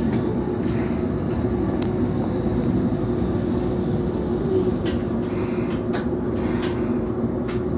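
Toyohashi streetcar running on street track, heard from inside the front of the car: a steady motor hum over the rumble of steel wheels on rail, with a few sharp clicks.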